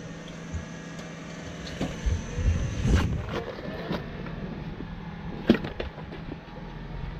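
Jeep Wrangler engine running steadily at low revs as it crawls over rock ledges. A few low thumps come about two to three seconds in, and a sharp knock, the loudest sound, about five and a half seconds in.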